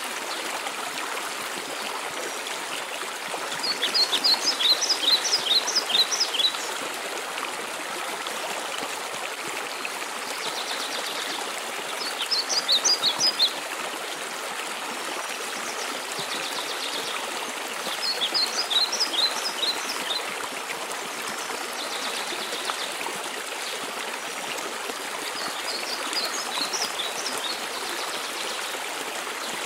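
Steady rush of a mountain waterfall, with a songbird singing a short phrase of rapid, high, down-slurred notes about four times, roughly every seven seconds, and softer buzzy notes between the phrases.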